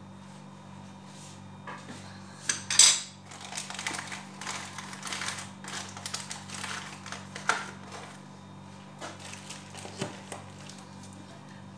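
Metal spoon clinking against a cooking pot and scraping inside it as corn flour is spooned into yogurt, with one sharp clink about three seconds in as the loudest sound. A low steady hum runs underneath.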